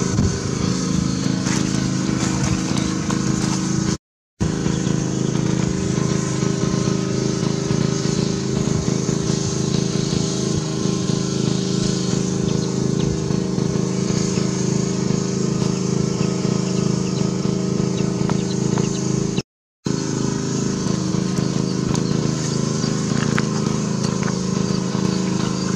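A small engine running steadily with an unchanging drone, cutting out briefly twice.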